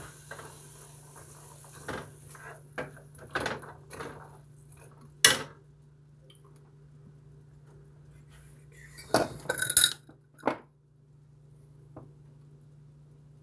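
Kitchen dishes and utensils clattering: a series of separate knocks and clinks, the loudest about five seconds in and a cluster of them around nine to ten seconds in, over a faint steady hum.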